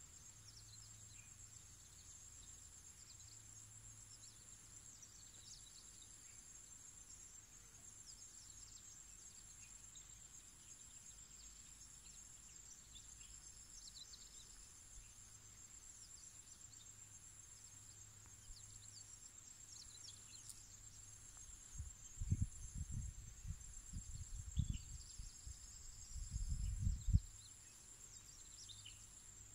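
A steady, high-pitched insect chorus of crickets or cicadas, with scattered short bird chirps over it. About three quarters of the way through, a few seconds of low rumbling on the microphone is the loudest sound.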